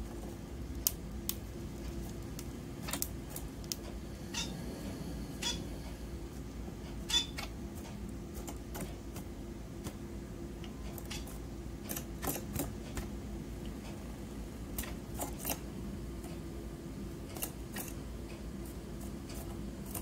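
Irregular light clicks and taps of Society finches pecking seeds from a tiny cup and stepping and pecking on a miniature plastic keyboard, over a steady low hum.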